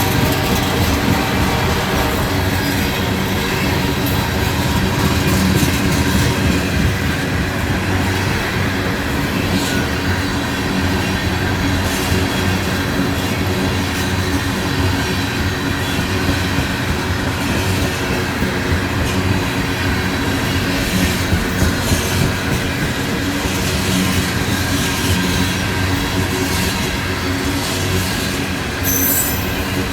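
Freight cars of a CPKC ballast train rolling past at close range: a steady rumble of wheels on rail with repeated clicks over rail joints and a short high squeal near the end.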